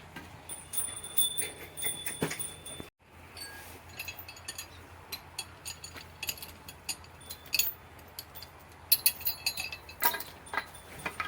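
Cattle neck bells jingling and metal clinking while cows and calves are untied and led around, with scattered knocks and clicks throughout. A couple of brief high ringing tones come in the first two seconds, and the sound cuts out for a moment about three seconds in.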